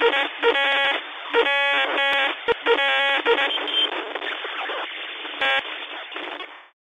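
Radio-style static hiss, narrow-banded like a walkie-talkie or phone line, broken by several short bursts of electronic beeping tones; it fades out shortly before the end.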